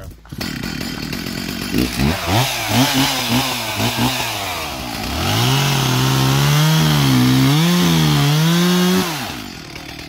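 Stihl MS 462 chainsaw, a two-stroke, revved up and down several times, then held at full throttle for about four seconds while cutting into the trunk of a spruce being felled. Under load its pitch sags and wavers. It drops back near the end.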